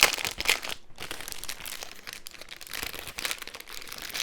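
Plastic packaging crinkling and rustling in irregular bursts as a keyboard is unwrapped and slid out of its plastic bag.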